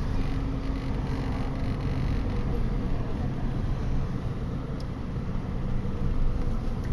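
Steady low rumble of a car's engine and tyres heard from inside the moving car's cabin while driving through city traffic.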